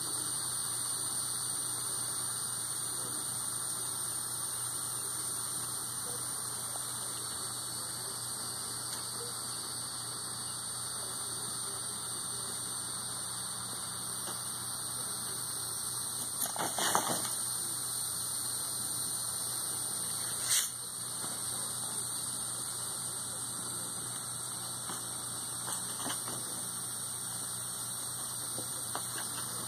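Steady electrical hum with a constant high hiss, broken twice a little past the middle by a brief knock or rustle.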